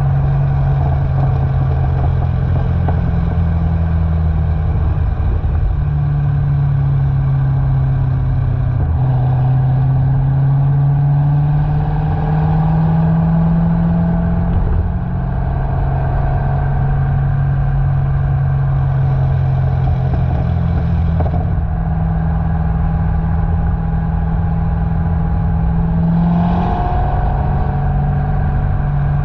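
C6 Corvette's LS3 V8 exhaust, through a Corsa X-pipe and NPP mufflers, drones steadily under way. Its pitch rises and falls gently with speed and steps a few times.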